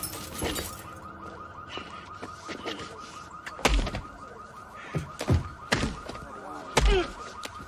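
Car alarm sounding with a fast, steady warble, broken by several heavy thumps, the loudest about four seconds in and near the end.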